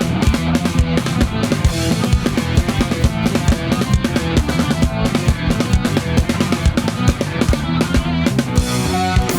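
Drum kit played live over a rock backing track with guitar, in fast, dense kick and snare strikes.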